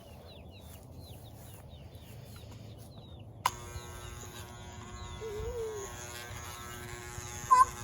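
Faint bird chirps, then about three and a half seconds in electric hair clippers click on and run with a steady buzz. A short loud call cuts in near the end.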